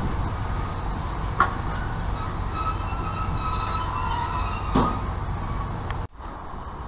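Class 150 Sprinter diesel multiple unit pulling away, its diesel engines running with a steady low rumble, with two sharp knocks from the train and a faint high wheel squeal in between. The sound cuts off suddenly near the end.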